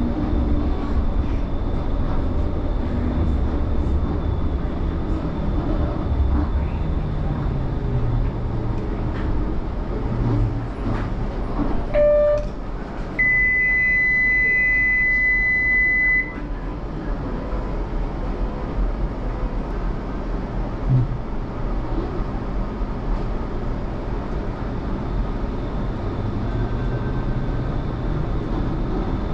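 Low-floor Bombardier Flexity Freedom light-rail tram running, its motor whine falling as it slows. About twelve seconds in there is a short chime, followed by a steady high beep lasting about three seconds while the running rumble drops away. Near the end the motor whine rises again as the tram picks up speed.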